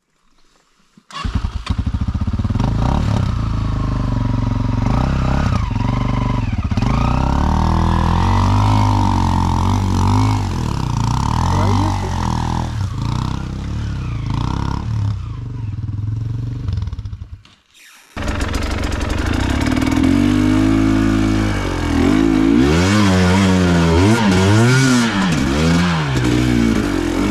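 Enduro motorcycle engines revving hard, pitch rising and falling with the throttle as a bike works through a stream crossing. The sound cuts out briefly about two-thirds of the way through, then another engine is heard close up, revving up and down quickly over the rough trail.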